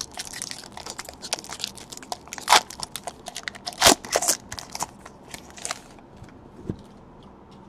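Thick trading cards handled and flipped through by hand: a quick run of clicks, snaps and rustles of card stock, with two louder snaps about two and a half and four seconds in, thinning out after about six seconds.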